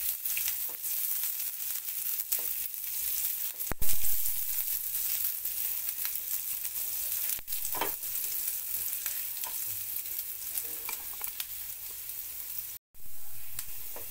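Sliced onion sizzling as it fries in ghee with cumin and mustard seeds for a dal tadka, stirred in a ceramic-coated pan with a spatula that scrapes the pan now and then. A single sharp knock about four seconds in, and the sound cuts out for a moment near the end.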